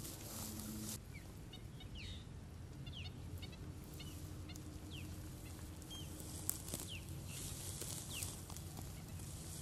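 Birds calling: short, downward-sliding chirps repeated every second or so over a steady low hum. A hiss cuts off about a second in.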